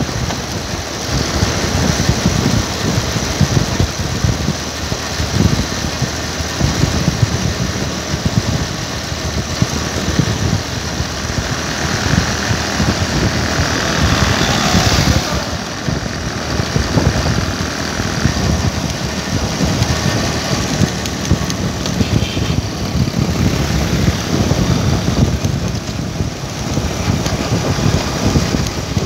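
Engine and road noise of a moving vehicle heard from on board, steady and rumbling. A brighter hiss swells about halfway through and cuts off.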